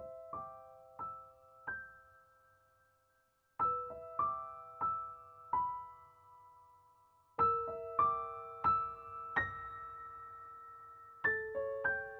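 Background music: slow, sparse piano. It plays short phrases of about four single notes, each struck and left to ring and fade, with a new phrase about every four seconds.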